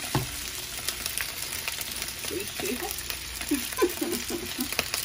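Rotini pasta and spinach sizzling in a hot skillet while being stirred with a wooden spoon, with a few sharp clicks of the spoon against the pan.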